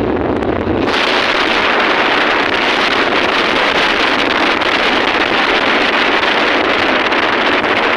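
Bajaj Avenger 160 motorcycle riding at road speed: wind rushing over the microphone with the single-cylinder engine running underneath. The rush gets brighter about a second in.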